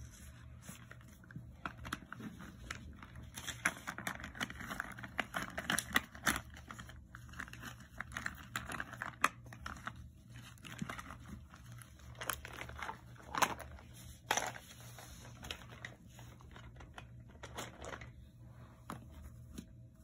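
Loose sheets of paper rustling and crinkling as they are handled and shifted, with scattered light clicks and taps.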